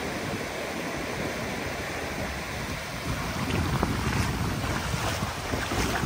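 Atlantic surf breaking and washing up over a shallow sandy beach, with wind buffeting the microphone and growing gustier about halfway through.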